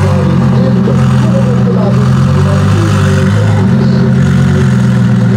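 Modified Audi R8 GT's twin-turbocharged V10, tuned to about 1050 hp, idling loudly and steadily, with a small change in pitch a little over three seconds in.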